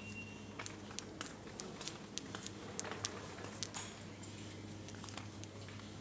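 Footsteps and scattered light clicks and taps in a quiet shop, over a steady low hum.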